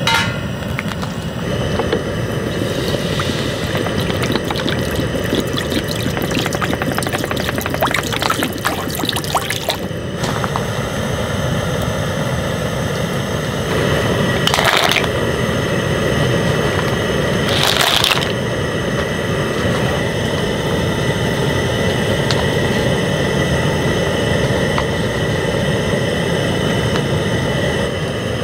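Camping gas stove burner running at full flame under a pot of soup that is bubbling at a rolling boil. A few brief knocks or splashes come over the top, the clearest two in the second half.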